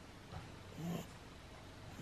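Pug puppy snoring softly in its sleep, a short snort on each breath about once every second and a quarter.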